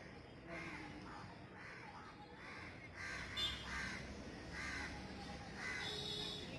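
Crows cawing: a string of short caws, a few each second.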